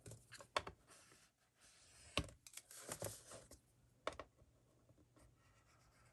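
Paper scraps and craft supplies being handled on a work table: a few scattered light taps and rustles, the sharpest about two seconds in.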